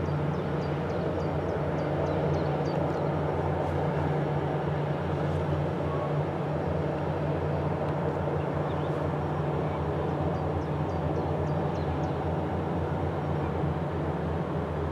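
Steady low drone of a large container ship's engine as the vessel passes. A bird gives a quick run of short, high chirps twice, near the start and again later.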